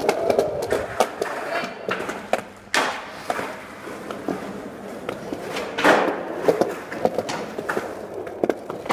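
Skateboard clattering on paving: the deck knocking against the ground among scattered clicks, with the two loudest knocks about three and six seconds in.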